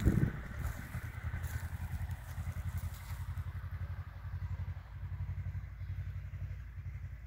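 Electric-motor-driven oil-well pumpjack running: a steady low hum with a quick, even pulse. A brief thump comes right at the start.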